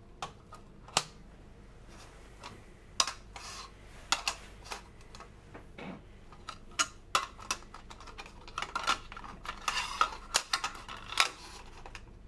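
Plastic Petri dishes of agar clicking and tapping against one another and the bench as they are unstacked and set out: irregular sharp clicks, coming thicker and faster near the end.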